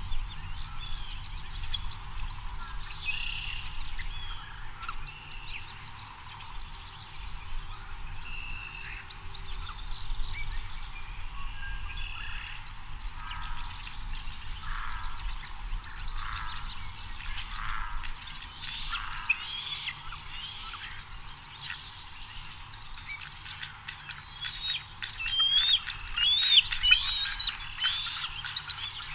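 Fledgling bald eagle calling: a run of high, chittering whistled notes, densest and loudest over the last few seconds. Scattered high bird calls come before it.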